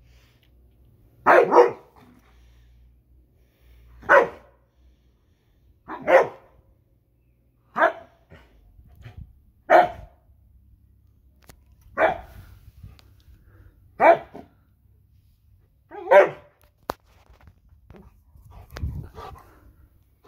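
Husky barking: single short barks about every two seconds, eight in a row, then a fainter one near the end.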